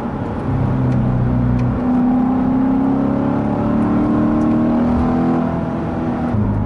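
C7 Corvette Z51's 6.2-litre V8, fitted with an X-pipe, heard from inside the cabin while accelerating. The engine note climbs steadily in pitch and drops back near the end.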